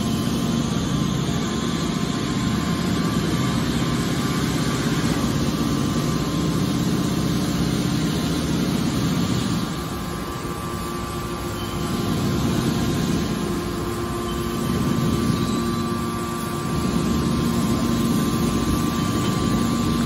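Hydraulic power unit of a horizontal scrap steel baler running steadily under load as its cylinders press and eject a bale of scrap metal, a steady machine hum with a few held tones. The level dips briefly about halfway through and again a few seconds later as the load shifts.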